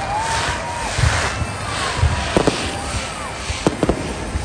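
A fireworks display: repeated deep booms of shells bursting over a constant crackling hiss, with several sharp cracks and a few short whistling tones that rise and fall.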